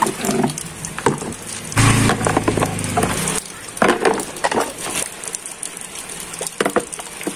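Rubber toy animals and a black plastic crate being handled on wet ground: irregular knocks, taps and scrapes, with a low rumble lasting about a second and a half a couple of seconds in.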